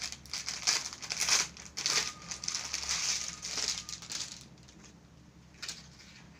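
Crinkling and rustling of packaged suit fabric as it is handled and unfolded on a shop counter. The rustling is busy for about four seconds, then dies down, with one short rustle near the end.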